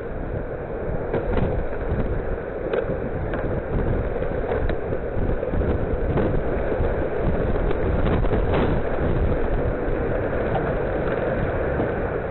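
Tornado wind blowing hard across a doorbell camera's microphone: a steady, dense rumble with several short knocks scattered through it.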